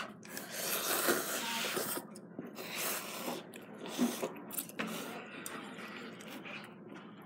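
A child slurping instant ramen noodles from a paper cup with chopsticks, a few long sucking slurps in the first five seconds, quieter near the end.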